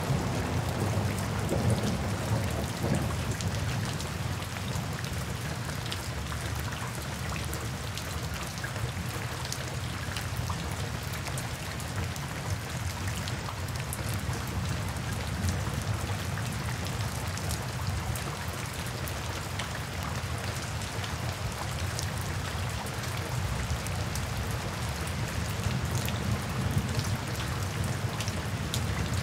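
Steady rain falling in a forest, with many sharp individual drops ticking close by. A low thunder rumble dies away in the first few seconds.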